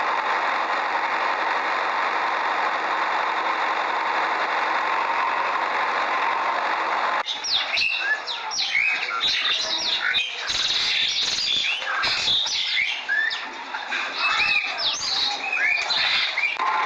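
A steady engine-like running noise cuts off suddenly about seven seconds in and gives way to many birds chirping, quick rising and falling calls; the running noise comes back just before the end.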